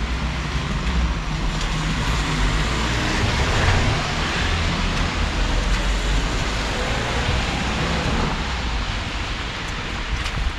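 Street traffic noise: a steady rumble and hiss of road vehicles, with one passing loudest about three to four seconds in.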